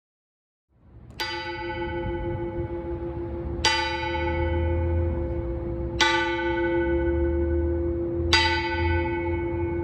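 Ysleta Mission church bell tolling: four strikes of the same bell, the first about a second in, spaced about two and a half seconds apart, each ringing on under the next, over a low rumble.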